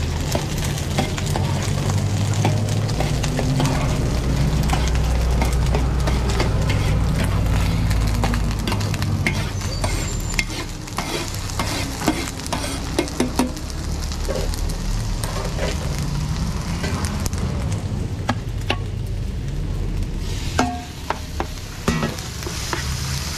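Green beans and diced onion sizzling in a large enamelled steel pan while a metal ladle-spatula stirs them, scraping and clicking against the pan, over a low rumble. A few sharper knocks come near the end.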